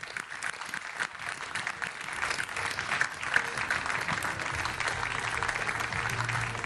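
Audience applauding. Music with a steady bass comes in underneath about four and a half seconds in.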